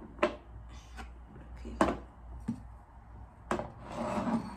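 Unpacking noises: three sharp knocks as containers and other items are set down and moved, then a short rustle near the end from rummaging in a cardboard box.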